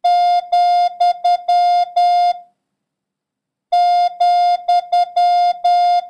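Morse code comma (dah-dah-dit-dit-dah-dah) sent twice as a steady single-pitch practice tone, with a pause of about a second between the two.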